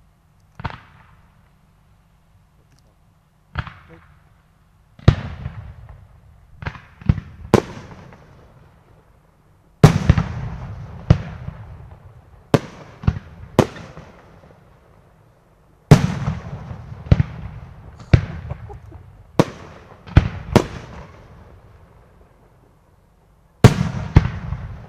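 Aerial firework shells bursting: nearly twenty sharp bangs in loose groups, each trailing off in a rolling echo. The first couple are faint and the loudest come in the middle of the sequence.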